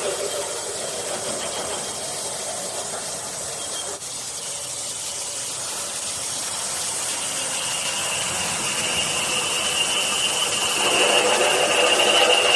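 Single-spindle H-beam drilling machine running with a steady hissing noise. A high, steady squeal sets in about eight seconds in and grows louder toward the end.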